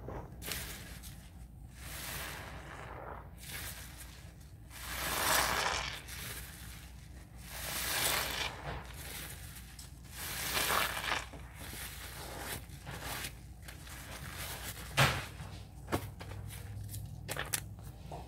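A soap-soaked sponge squeezed and worked in a sink of thick dish-soap foam: wet squelching and crackling suds in repeated swells, each a second or two long. A few sharp clicks come near the end.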